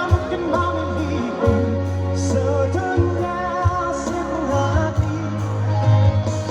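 A pop song with a singing voice over bass and drums, a beat falling about every second and a half, played through an FDB LA210 line-array PA system.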